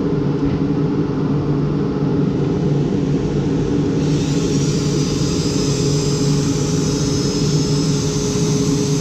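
Dremel rotary tool running at a steady high speed with an even motor whine. About four seconds in, a higher grinding hiss joins as the bit cuts into the helmet edge.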